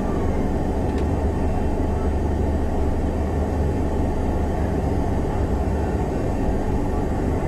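Steady low rumble and hum inside a standing train carriage, heard through the closed window, with no wheel or track noise.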